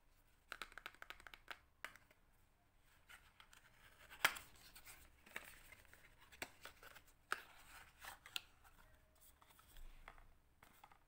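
Hands handling objects: a quick run of light clicks and taps, rustling, and a sharper knock about four seconds in.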